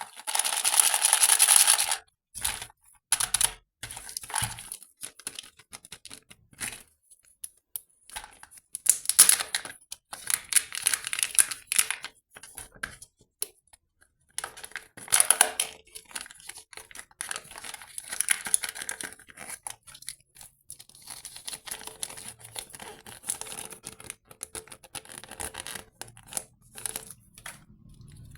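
Foil wrapper of a Kinder Surprise egg being torn and crinkled close to the microphone. The rustling comes in loud bursts, the longest at the start, with many small clicks and taps between them.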